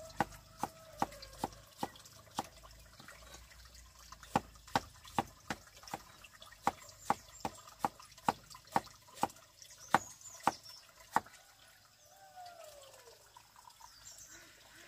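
A run of sharp, separate taps or drops, about two a second with a short pause, stopping about eleven seconds in.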